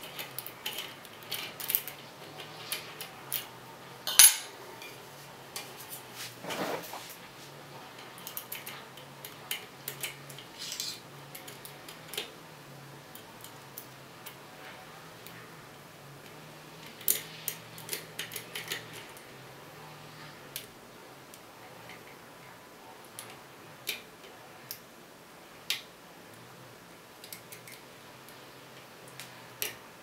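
Bypass tools, a thin steel wire and a flat insert, scraping and clicking inside a Thirard Adria euro cylinder lock: irregular light metallic clicks, with a sharper click about four seconds in and a flurry of clicks a little past the middle. A faint low hum runs underneath.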